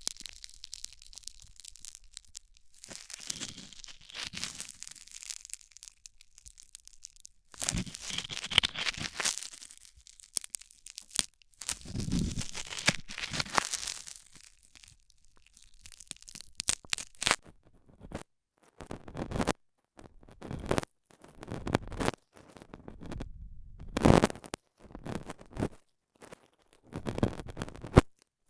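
Stainless steel dental scaler scraping and picking in an ear close to the microphone for an ear-cleaning ASMR recording: irregular bouts of crackly scraping and rustling, with sharp clicks and short silent gaps.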